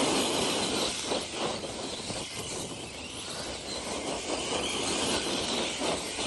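Radio-controlled rock crawler driving over rough ground: its drivetrain and tyres grind over dirt and rock in a steady noisy rush that swells and eases.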